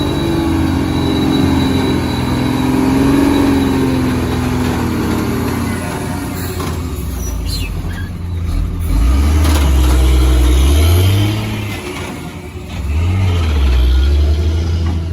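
Heavy diesel engine working under load. It runs steadily at first, then revs up about nine seconds in, eases off, and revs up again near the end.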